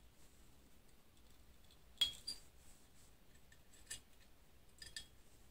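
An Allen key clinking in the hex screws of an Anycubic Photon Mono build platform as they are loosened for bed levelling: a few small metallic clicks, the sharpest about two seconds in.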